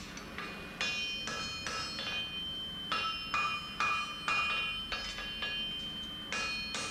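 Farrier's hammer striking a hot horseshoe on the anvil: about a dozen ringing blows, roughly two a second, with a short pause near the end. He is reshaping the shoe to fit the hoof.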